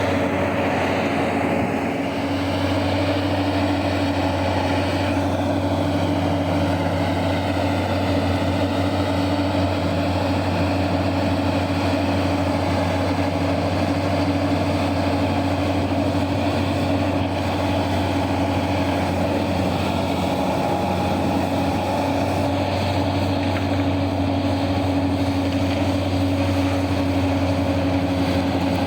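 Heavy mining machinery's large diesel engines running steadily, a constant deep drone with a steady hum above it.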